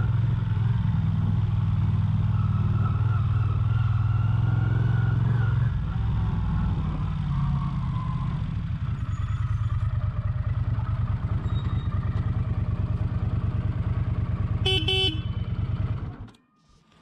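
Honda CX500's liquid-cooled V-twin engine running under way, its revs dropping to a slower, even beat about six seconds in as the bike rolls to a stop. A short horn toot sounds near the end, then the engine is switched off and cuts out abruptly.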